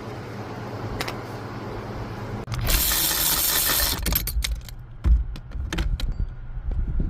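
Hand tools and metal parts clinking and knocking, with a loud rushing noise lasting about a second and a half near the middle, over a low steady hum.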